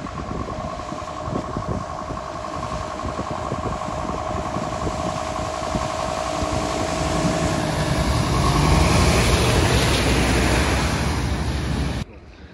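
Scania fire engine's diesel engine running as it drives through deep floodwater, with water rushing and spraying off its wheels. It grows louder as the truck comes close, loudest about nine seconds in, and cuts off suddenly near the end.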